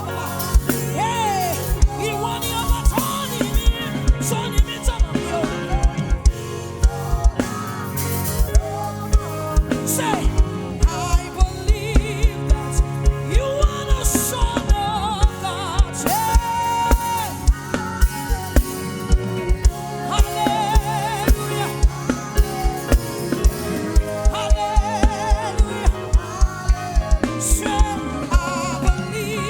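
Live gospel praise music from a band, with a drum kit keeping a steady, driving kick-drum beat under melodic lines with vibrato.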